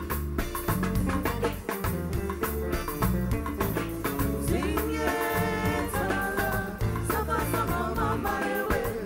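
Live band playing a steady dance groove: electric guitar over bass and drums. A melody line comes in about halfway through.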